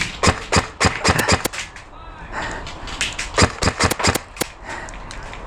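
Airsoft gunfire: a quick run of sharp cracks in the first second and a half, then another irregular run from about three to four and a half seconds.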